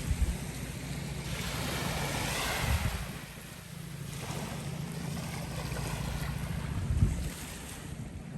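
Small waves washing onto a beach, swelling twice, over a steady low hum. Wind buffets the microphone in low thumps near the start, about a third of the way in, and near the end.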